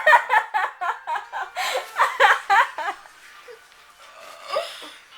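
Laughing and giggling in quick short bursts for about three seconds, then quieter, with one short vocal sound near the end.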